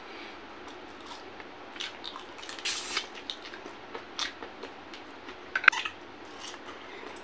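Close-up mouth sounds of eating by hand: wet chewing and lip smacks on rice, shrimp and fried pork, broken by scattered clicks. There is a louder hissing burst about two and a half seconds in and a quick run of sharp clicks a little before six seconds.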